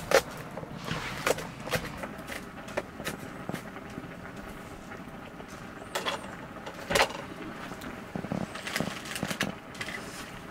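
Knife blade striking a plastic cutting board as red onions are sliced, in separate sharp chops spread out over several seconds, over steady background noise.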